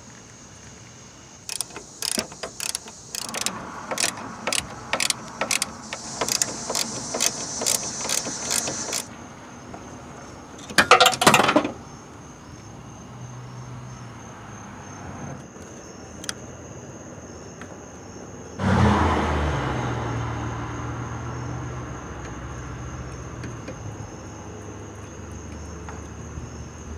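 Sharp metallic clicking, a few clicks a second, as of a socket ratchet working on the hood latch bolts, then a loud brief burst of noise; about two-thirds of the way in a steady low machine hum starts suddenly and continues.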